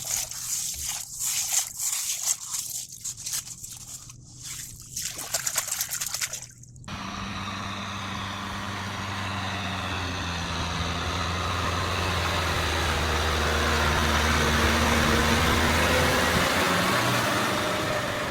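Water trickling and splashing in irregular spurts. About seven seconds in, it cuts to a steady low mechanical hum with hiss that slowly swells.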